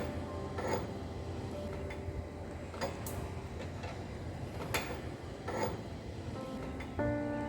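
Sharp light clicks, about five of them spread irregularly, over quiet background music that swells up again near the end.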